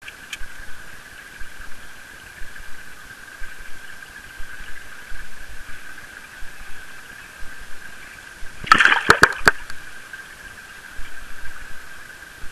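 Aquarium tank water sounds: a steady faint hiss with a steady high hum and scattered small ticks. A quick burst of sharp clicks and crackles comes about nine seconds in.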